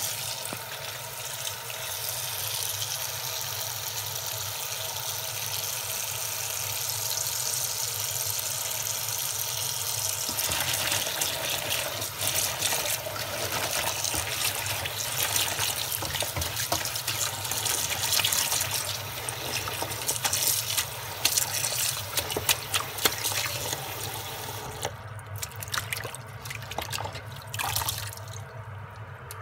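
Kitchen tap running into a stainless steel bowl of sliced bok choy while a hand tosses and rinses the wet leaves, giving irregular splashes over the steady flow. Near the end the running water thins out, leaving a few scattered splashes.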